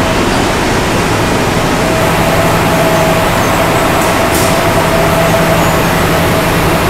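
Steady, loud machinery noise from a furniture factory's packing line, with a steady hum tone running through it. A short high hiss comes about four seconds in.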